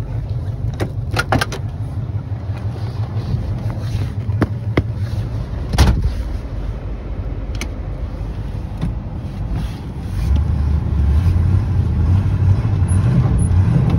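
1987 Ford Bronco's 302 Windsor V8 running through a homemade twin exhaust, a steady low rumble, with several sharp clicks and knocks in the first six seconds. About ten seconds in the exhaust grows louder and deeper as the truck is driven off through snow in four-wheel drive.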